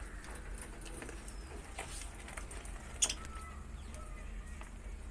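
Budgerigars giving short, soft chirps, with scattered small clicks and taps as they feed, the sharpest click about three seconds in. A steady low hum runs underneath.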